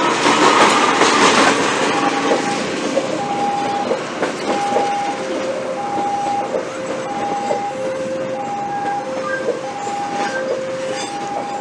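Diesel-hauled passenger train passing close by: the locomotive goes past loudest in the first two seconds, then the coaches roll past with wheel clatter over the rail joints. From about two seconds in, a level-crossing alarm sounds over it, alternating a high and a low note in short, even beeps.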